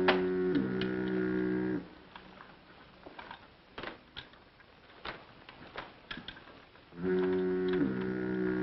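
Ship's fog horn sounding twice, about seven seconds apart, warning in thick fog. Each blast is a low, chord-like horn tone that drops in pitch after about half a second and holds for more than a second; faint clicks and creaks fill the gap between.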